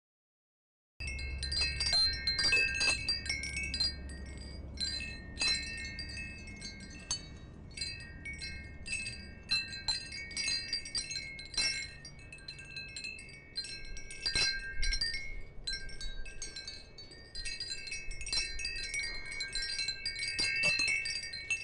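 Wind chimes tinkling, struck irregularly on a few fixed high notes, starting about a second in. A low rumble sits under the first few seconds.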